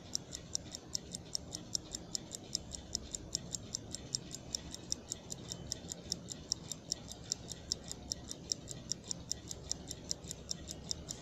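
Mechanical wristwatch ticking steadily and quietly, about five ticks a second, with every other tick slightly louder.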